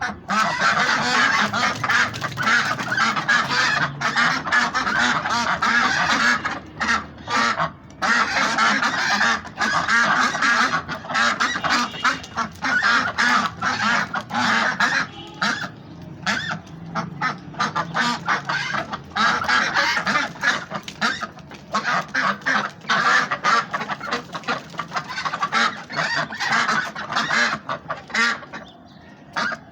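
A flock of ducks quacking, many calls overlapping almost without pause.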